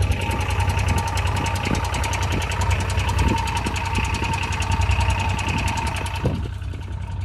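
Engine of a military side-by-side utility vehicle idling close by: a steady running sound with a thin tone on top, which drops away about six seconds in.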